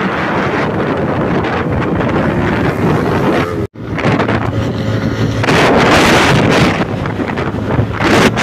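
Wind buffeting the microphone on a moving motorcycle, with the engine running steadily underneath. The sound drops out for an instant a little before four seconds in, where the footage is cut.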